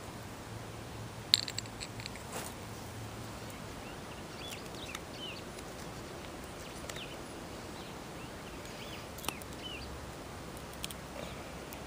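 Steady outdoor hiss with a few sharp clicks and taps, the loudest a little over a second in, and faint bird chirps scattered through.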